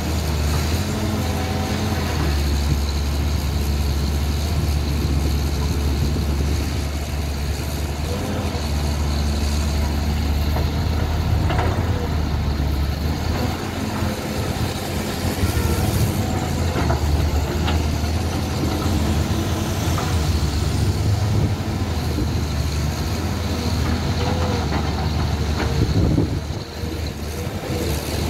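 Caterpillar 320L hydraulic excavator working: its diesel engine runs steadily with a deep hum, the note shifting in strength as the arm digs, swings and dumps soil.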